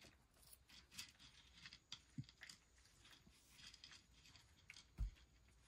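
Cat eating from a food bowl: faint, irregular crunching and chewing clicks. A soft low thump comes about five seconds in.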